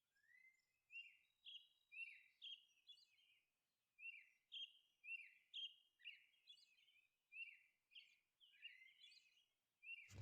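Faint bird chirping: short, high, falling chirps repeating irregularly, about two a second.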